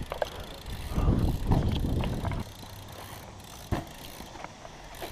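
BMX bike rolling slowly on artificial turf, with a louder low rush of noise from about one second in lasting a second and a half, light clicks, and one sharp knock late on.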